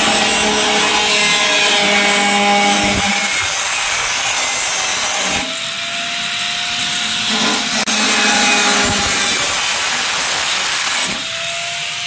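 Electric angle grinder with a cutting disc cutting through the sheet metal of a square tin can, a loud continuous grinding. Twice, about five and a half seconds in and again near the end, the disc comes off the metal and the motor spins free with a steady whine.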